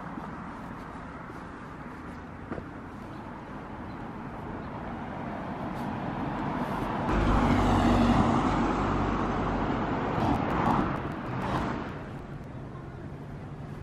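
Street traffic: a car drives past close by, its sound building slowly to a peak about seven to eight seconds in and then fading, with a smaller pass-by near eleven seconds.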